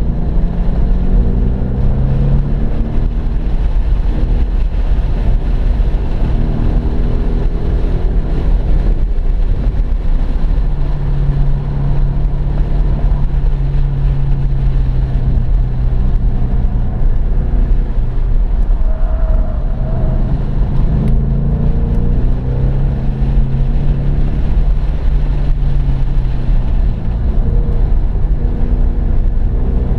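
2015 Ford Mustang GT's 5.0-litre V8 heard from inside the cabin under hard track driving, its note climbing repeatedly as it accelerates and dropping as it lifts, with a steady low road and wind rumble underneath. Midway it holds an even note for several seconds.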